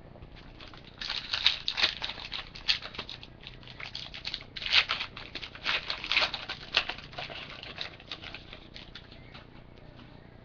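Trading cards being handled and flipped through: an irregular run of soft rustles and flicks from about a second in, dying away near the end.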